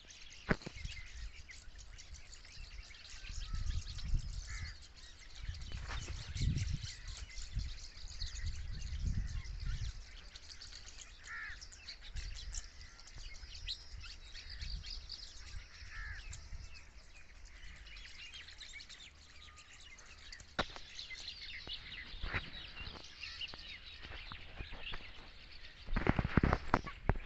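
Birds chirping and calling throughout in many short high notes, with a few bouts of low rumble and some sharp clicks, loudest near the end.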